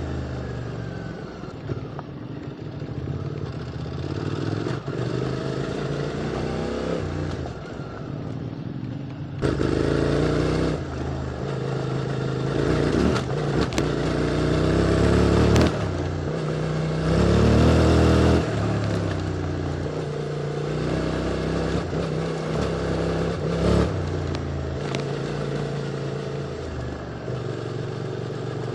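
QJ Motor SVT650X motorcycle engine through an Arrow slip-on exhaust, heard from the rider's position while riding. The revs rise and fall several times as the throttle opens and closes, with a few sharp knocks along the way.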